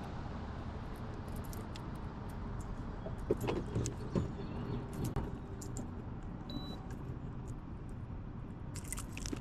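Steady low rumble with scattered light clicks and metallic clinks, thickest around the middle, and a brief high tone about two-thirds of the way through.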